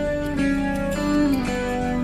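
Background music: a guitar-led instrumental, its notes shifting about every half second.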